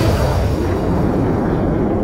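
A deep, noisy rumble, with no beat or tune, slowly dying away; its higher part fades first.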